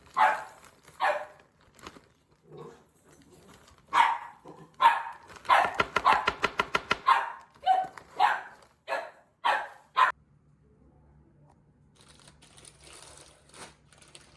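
Small pet dog barking repeatedly, with a fast run of yaps in the middle, then falling quiet about ten seconds in.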